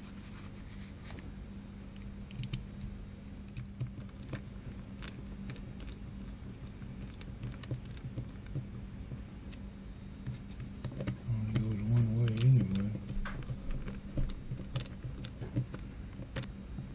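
Small metal carburetor parts and hand tools clicking and tapping on a workbench as a section of an outboard carburetor is put back together, over a steady low hum. About eleven seconds in comes a louder, wavering low tone lasting a second or two.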